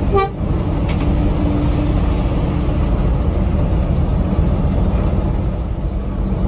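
Steady low rumble of a Mercedes-Benz 1626 coach's diesel engine and road noise, heard inside the cabin while the bus drives at speed. A brief tone sounds right at the start.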